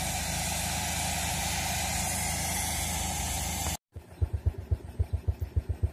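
Heavy machinery at a geothermal well site, an engine running steadily under a loud even hiss, which cuts off abruptly about four seconds in. After that comes a quieter run of rapid, regular low thumps.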